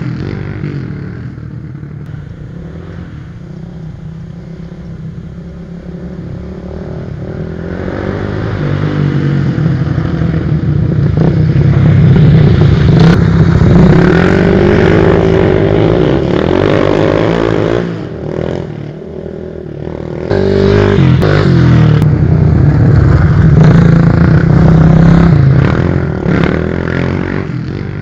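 Two Kawasaki KLX trail bikes' single-cylinder four-stroke engines. The engines fade off into the distance, then grow loud again as the bikes come back and pass close with the revs rising and falling. After a brief drop they come past loud once more and fade away near the end.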